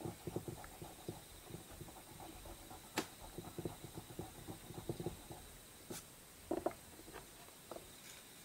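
A dark drawing stick scratching and rubbing across sketchbook paper in short, irregular strokes, with a sharp click about three seconds in and another about six seconds in.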